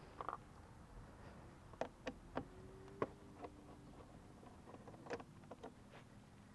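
Irregular light clicks and taps of hand tools and screws on the plastic body panels of a Suzuki Burgman 400 scooter as the panel screws are taken out, about a dozen over several seconds.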